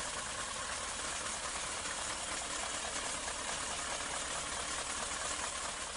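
Trucks' diesel engines running, heard as a steady, even noise.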